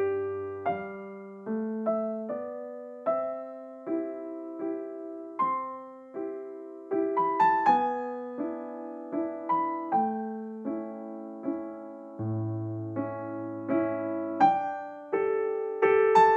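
Background music: a piano tune played note by note at an unhurried pace, with a few long low bass notes underneath.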